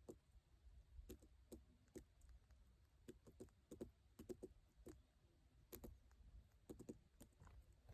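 Faint, irregular light clicks and taps, some in quick clusters.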